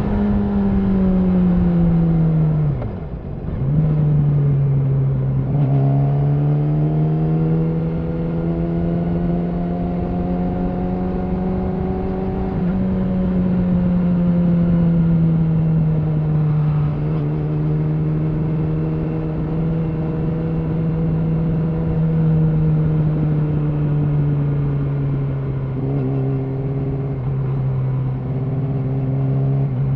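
Yamaha R6's inline-four engine through an Akrapovic slip-on exhaust, ridden at part throttle. The pitch falls as the throttle closes about three seconds in, then picks back up and holds fairly even with slow small rises and falls.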